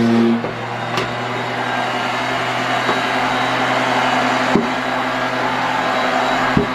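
Electric power sander running steadily against the wood of the toolbox, with a few sharp knocks along the way.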